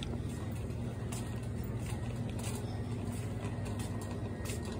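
Steady low hum and rumble of a shopping cart rolling along a store aisle, with a few faint clicks and rattles.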